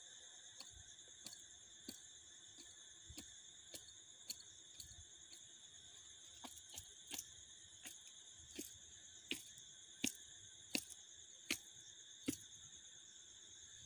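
Insects trilling steadily at a high pitch, with a regular sharp click about every two-thirds of a second that grows louder toward the end.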